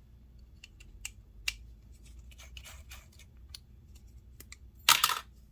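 Light scattered clicks and taps of small tools and parts being handled on a workbench, with a brief louder scrape or rustle near the end.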